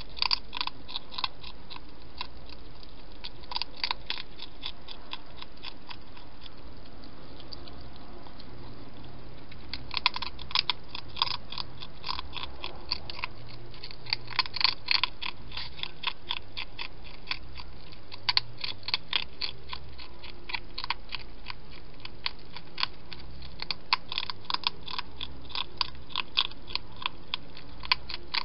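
A wild hedgehog eating from a bowl: bursts of crunchy chewing clicks every few seconds over a steady background hiss.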